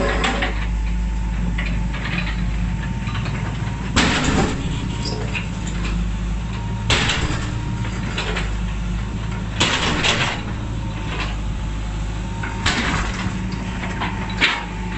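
Hydraulic crawler excavator's engine running steadily while its bucket teeth ram down on an old steel-reinforced concrete wall. About six heavy crunching strikes come roughly every three seconds as the hard concrete gives way.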